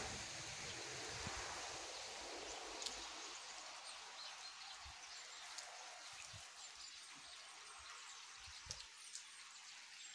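Steady rain falling, a soft even hiss that eases slightly after the first few seconds, with scattered small clicks and rustles.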